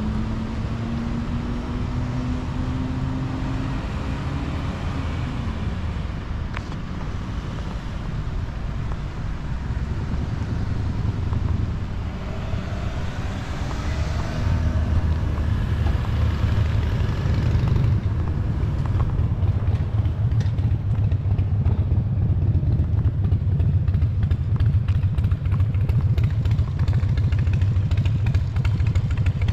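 Outdoor street ambience at a road intersection: cars passing with engine and tyre noise, one engine's pitch gliding up in the first few seconds and another passing about halfway through. From about 18 seconds in, a louder steady low rumble takes over.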